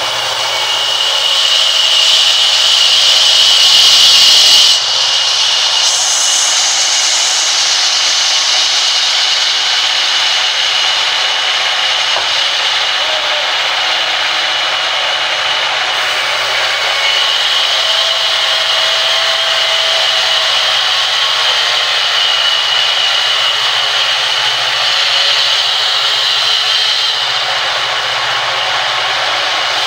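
Sawmill band saw ripping a log lengthwise: a steady sawing noise with a high whine running through it. It grows louder over the first few seconds, then drops suddenly about five seconds in and carries on evenly.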